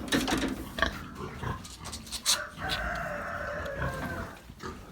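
Farm animal calls: one long, steady call from about two and a half seconds in to about four seconds, after a few knocks and clatter of feeding.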